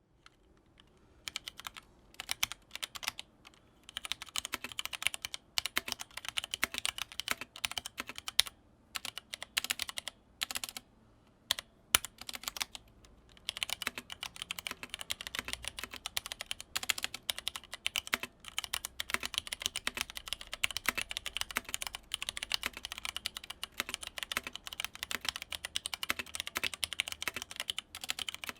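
Typing on a Leopold FC660M keyboard with linear Cherry MX Red switches: quick, dense clacks of keys bottoming out. It starts in short bursts with brief pauses and settles into steady fast typing about halfway through.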